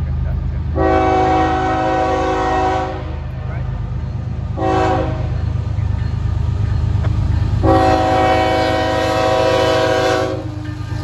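Freight diesel locomotive's air horn sounding for a grade crossing: a long blast, a short one, then another long one. The horn comes from the lead GE ES44C4 of a Florida East Coast train.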